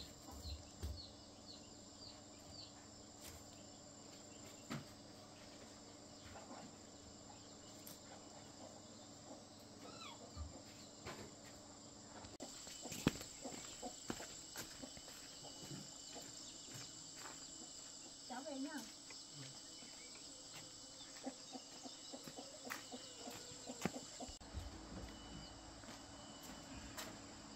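Faint steady high-pitched chirring of insects, with scattered light clicks and knocks.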